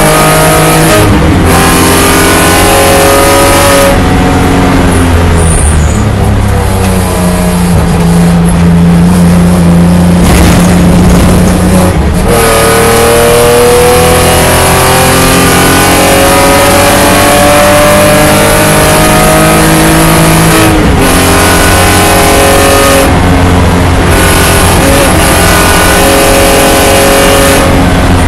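BMW E9x race car's engine heard from inside the cockpit under hard acceleration. Its pitch climbs through the gears, with a brief drop at each upshift, several times over. In the middle it holds steadier while the car slows for a corner, then it pulls up through the gears again.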